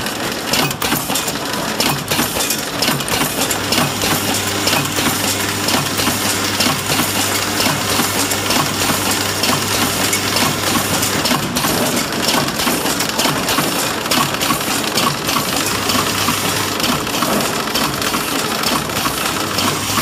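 Horizontal flow wrapping machine running, a dense clatter of clicks and rattles as switch panels pass through in film. A steady low hum comes in a few seconds in and drops out again later.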